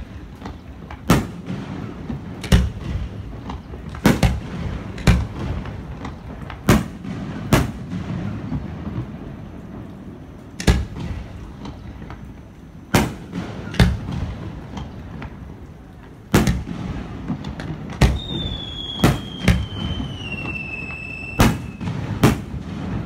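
Aerial firework shells bursting with sharp bangs, over a dozen at irregular intervals, with a low rumble between them. Near the end a whistling shell gives one falling whistle lasting about three seconds.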